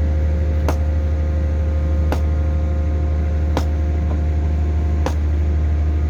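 Hydraulic static pile driver's engine and hydraulic power unit running with a steady low hum, with a sharp click or knock about every second and a half, four times.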